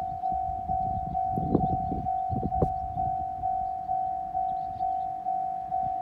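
Japanese level-crossing warning bell ringing its steady 'kan-kan', a single ringing tone struck about twice a second. A low rumble with a couple of knocks comes in about a second in and fades by three seconds.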